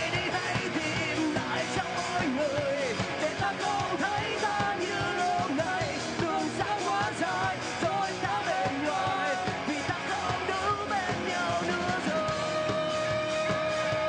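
Rock band playing live: a male singer singing over the band with a steady beat, and about twelve seconds in a long high note is held.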